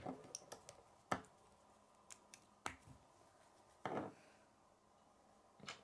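Yellow plastic K'nex rods clicking into a blue K'nex connector: several faint, sharp snaps, about a second apart.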